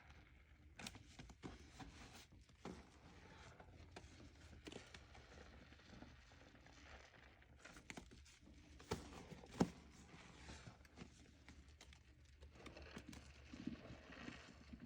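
Soapy sponge being squeezed and squished by hand: faint, irregular crackling and squelching, with a sharper click about nine and a half seconds in.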